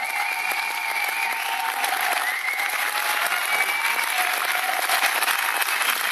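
Concert audience applauding: dense, steady clapping with a few thin held tones above it.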